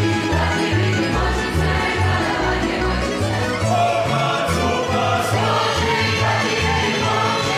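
A Slavonian folk ensemble of men's and women's voices singing together over instrumental accompaniment with a steady bass line.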